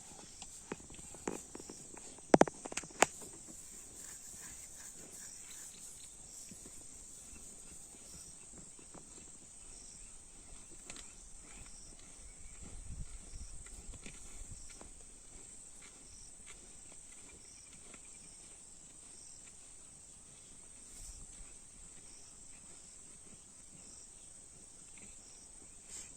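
Steady high-pitched chirring of insects, with a few sharp cracks or snaps in the first three seconds.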